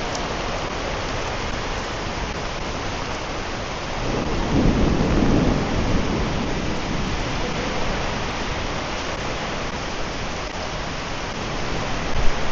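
Heavy storm rain pouring steadily, with a low rumble of thunder swelling about four seconds in and fading a couple of seconds later.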